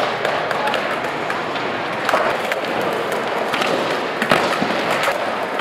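Skateboard wheels rolling and boards knocking on wooden ramps, with several sharp clacks; the loudest comes a little over four seconds in.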